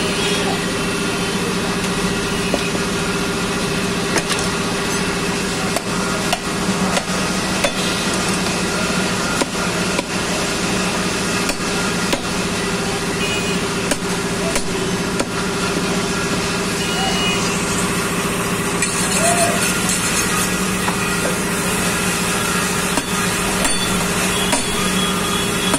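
A heavy butcher's knife strikes and chops cow leg bone on a wooden chopping block, giving irregular sharp knocks. A steady engine hum runs underneath.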